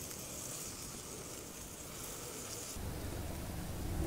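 Beef steak sizzling faintly on a hot barbecue grill grate as sauce is brushed onto it. About three seconds in, the sizzle stops and a low steady hum takes over.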